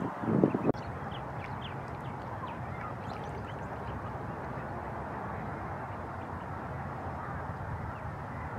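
Mallard ducklings peeping faintly, a few short high calls in the first few seconds, over a steady background hiss. A brief gust of wind hits the microphone at the very start.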